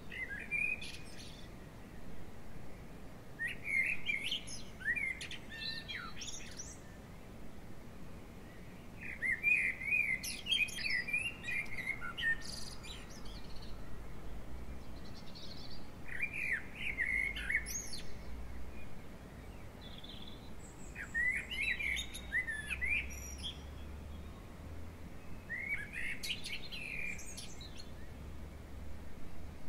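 A songbird singing short phrases of quick, high, warbling notes, repeated every few seconds, about six phrases in all.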